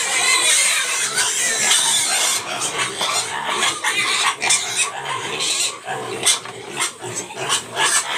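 A pen of young pigs squealing and jostling at a concrete feed trough at feeding time, with scattered short knocks among them.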